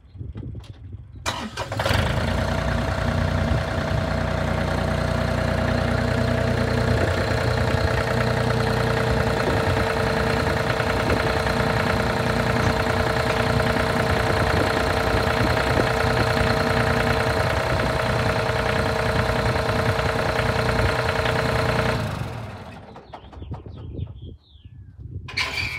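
John Deere compact tractor's diesel engine starting about two seconds in and running steadily, with a steady whine over the engine note. It dies away shortly before the end, as the engine is shut off.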